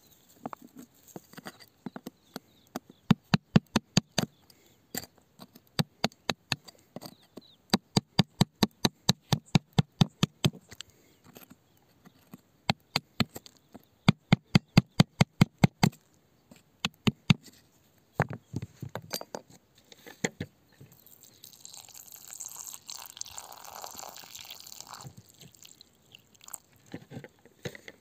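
Runs of sharp knocks, about four a second, as a hand tool chips and prods at wet shoreline rock around an embedded stone. After them comes a few seconds of rough scraping noise.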